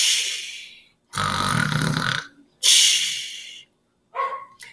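A woman imitating snoring: a low rasping snore on the in-breath between two long hissing out-breaths.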